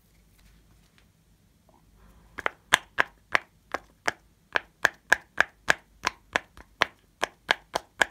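Yellow owl-shaped silicone push-pop fidget toy, its bubbles popping one after another as fingers press them in: a steady run of sharp pops about three a second, starting about two and a half seconds in.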